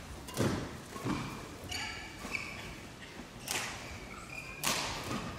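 Sounds from a badminton court between rallies: four scattered thuds and a few short, high shoe squeaks on the court floor.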